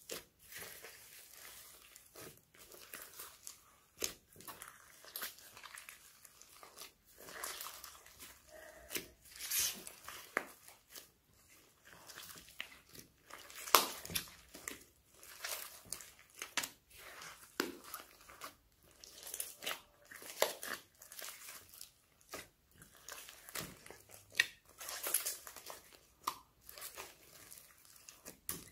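Slime mixed with foam beads being kneaded and squeezed by hand: irregular sticky crackles, squelches and pops, with one louder snap about fourteen seconds in.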